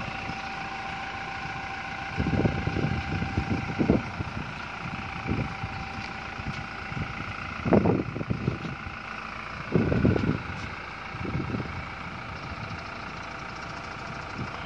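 A vehicle engine idling with a steady drone. It is broken by loud low rumbles on the microphone about two, eight and ten seconds in.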